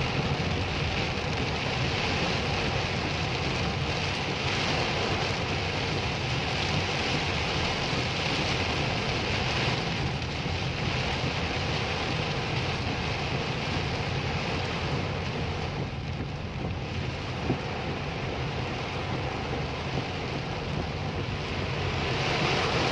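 Steady noise of heavy rain on a car, heard from inside the cabin as the car drives, with tyres swishing on the wet road and a low engine rumble underneath. One brief thump about two-thirds of the way through.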